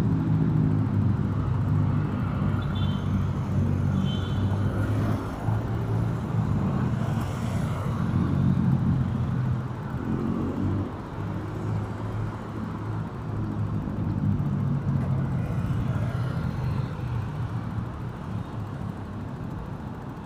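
Road traffic on a busy city highway: vehicle engines running with a steady low hum over road noise, easing off a little in the second half.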